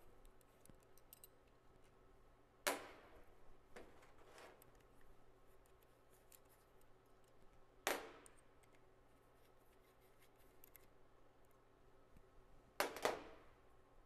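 Sharp metallic clicks from hand work on a plasma table's Z-axis stepper motor as its mounting is undone: three clicks about five seconds apart, the last a quick double, with faint handling noise between.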